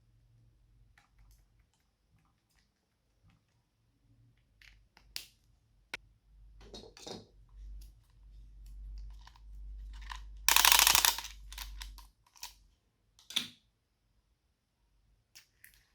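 Glossy slime being squished and stretched by hand: scattered sticky clicks and crackles, with a loud, roughly second-long squelch about ten seconds in and a shorter one a couple of seconds later.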